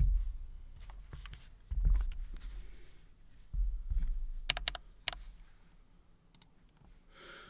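Keys of a newly built Intro S100 mechanical keyboard clicking a few at a time, with three clicks in quick succession about halfway through. Low thuds come as the board is handled.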